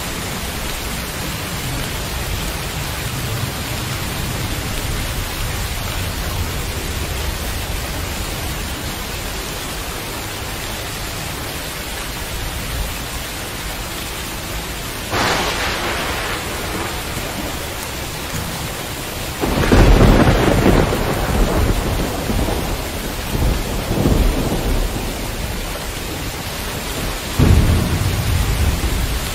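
Steady heavy rain with thunder: a short, sharper swell about halfway through, then a loud low rumble from about two-thirds in that rises again near the end.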